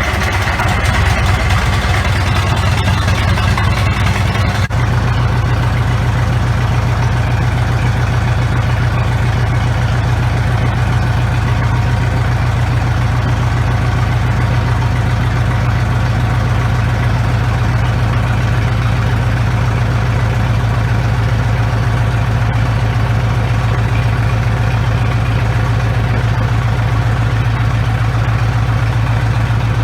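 1953 Farmall Super MD's four-cylinder diesel engine running just after being started. About five seconds in its note changes, and it then settles into a steady idle.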